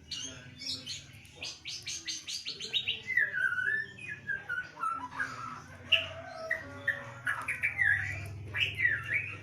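White-rumped shama (murai batu) singing. A fast rattling run of notes gives way to varied swooping whistled phrases.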